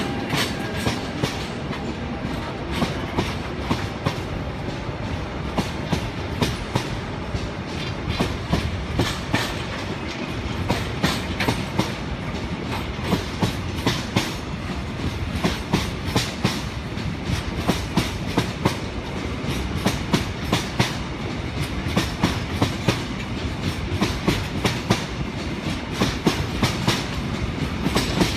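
Freight train of grey tank wagons rolling past, its wheels clicking over the rail joints in a steady clickety-clack, the clicks coming in quick little clusters over and over.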